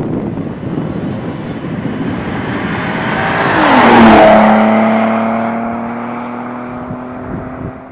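2010 Ford Taurus SHO's twin-turbo 3.5-litre EcoBoost V6 through a Corsa aftermarket exhaust, driving past. It grows louder on approach, and its pitch drops as it passes about four seconds in. It then leaves a steady exhaust drone that fades as the car pulls away.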